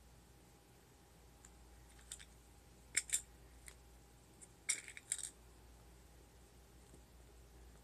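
Small sharp clicks and clinks of buttons being picked up and handled, in a few brief clusters.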